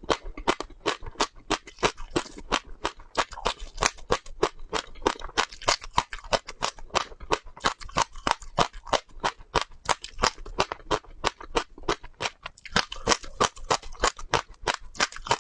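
Close-miked crunching of crisp seeds being chewed: rapid crackling crunches, several a second, without a break.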